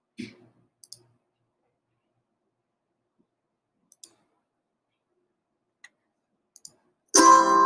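A handful of short computer mouse clicks, spaced out over several seconds with silence between. About seven seconds in, music begins loudly with plucked strings.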